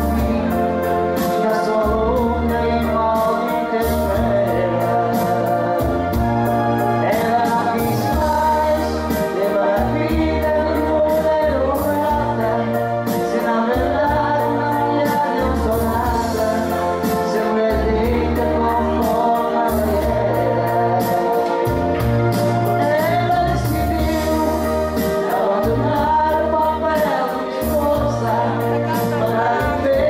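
Karaoke singing: a woman and a man sing into microphones over a recorded backing track with a repeating bass line.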